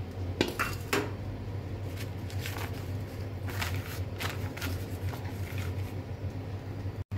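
Paper towel rustling and crinkling in short bursts as it is handled and pressed into a stainless steel pot, over a steady low hum.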